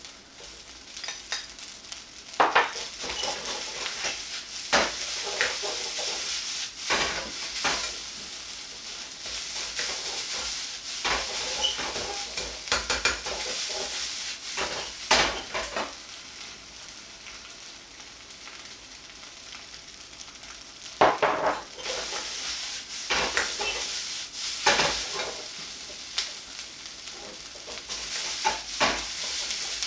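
Fried rice with egg and shrimp sizzling steadily in a hot wok while a metal ladle stirs it, with irregular clanks and scrapes of the ladle against the wok.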